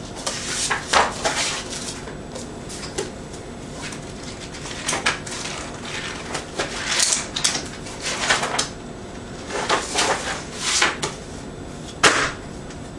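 Paper pages of a sketchbook being flipped and fanned in repeated short bursts of rustling, then the sketchbook slapped down onto the table with a sharp knock near the end.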